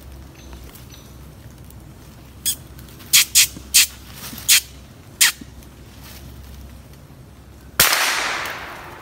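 A single .22 LR rifle shot near the end, dying away through the woods over about a second. It comes after six short, sharp, high-pitched sounds spread over about three seconds.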